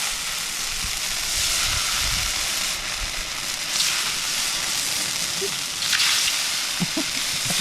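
Dosa batter sizzling on a hot pan, a steady hiss with a few light knocks.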